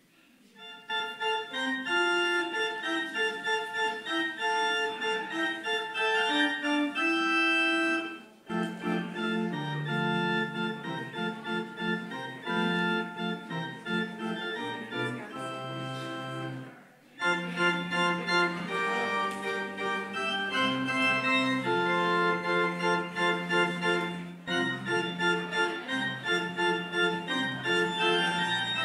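Organ music playing the postlude at the close of a church service. It starts about a second in and runs in held chords and melody lines, with a few brief breaks between phrases.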